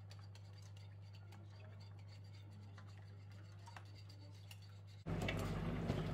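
A plastic spatula stirs a chunky stew in a stainless-steel pot, giving faint scrapes and clicks over a steady low hum. About five seconds in, a much louder hissing noise comes in suddenly.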